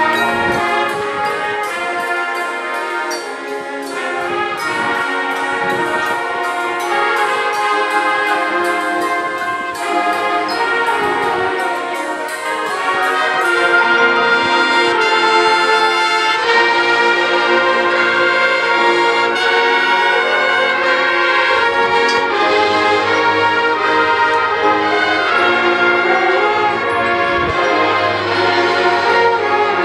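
Marching band brass playing sustained chords over a steady ticking percussion pulse. About halfway through, the band swells louder and fuller.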